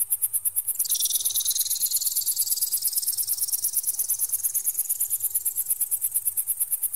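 Electronic bird-repeller sound: a very high-pitched pulsing at about ten pulses a second. About a second in, a second tone joins it, dropping sharply in pitch and then slowly rising again.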